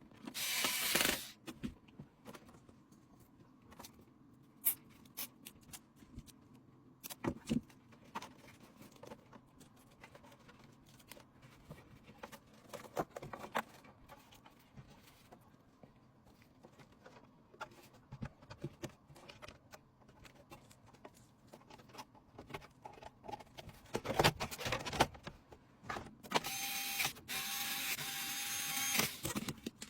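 Small parts being handled during a PC build: scattered clicks and light knocks, with an electric screwdriver whirring briefly just after the start and for about three seconds near the end.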